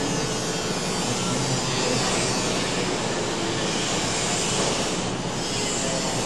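Steady, even hiss of background room and microphone noise.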